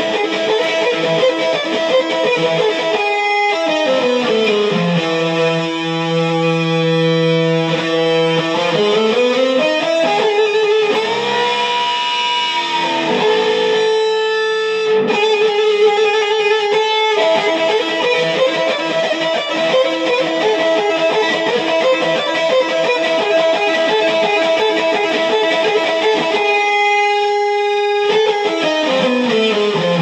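Les Paul electric guitar playing a slow riff of long sustained notes, sliding down and back up the neck and bending strings.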